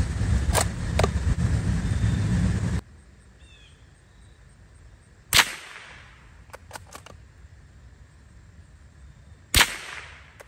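.22 LR shots from a Remington Model 512 Sportsmaster bolt-action rifle: two sharp cracks about four seconds apart, each with a short echo, and a few quick metal clicks between them as the bolt is worked. Before the shots, a loud rumble with a couple of clicks cuts off suddenly.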